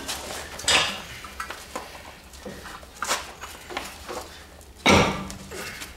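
Stuck front brake rotor of a 2003 Kia Spectra being worked off its hub by hand: metal clanks and scrapes, with three sharp knocks about two seconds apart. The loudest knock comes near the end.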